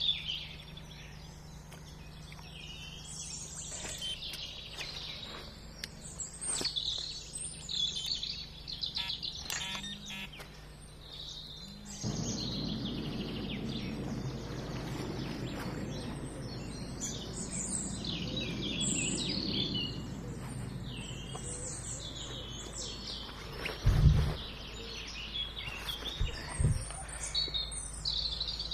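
Wild birds singing and chirping around a lake, many short high calls throughout, with one short thump about 24 seconds in.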